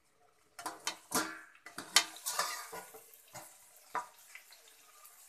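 Steel bowl lid and utensils clanking and scraping against an iron kadhai as the lid is handled and lifted off the cooking chicken. The clanks come fast about a second in, are loudest about 2 s in, and thin to a few single knocks after 3 s.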